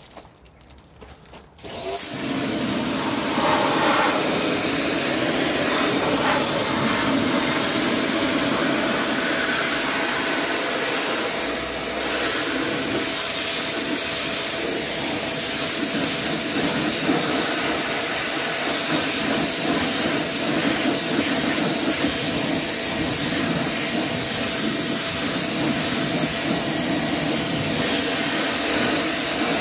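Pressure washer starting about two seconds in and running steadily, its jet spraying against an alloy wheel and tyre to rinse off fallout remover.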